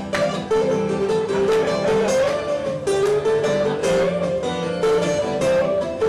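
Acoustic guitar playing a picked melody that steps up and down over a held low note, with regular strummed strokes.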